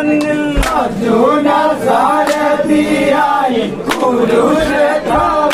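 A group of men chanting a Kerala vanchippattu boat song in unison, drawing out long sung notes that slide in pitch. Two sharp knocks cut through, about half a second in and near four seconds.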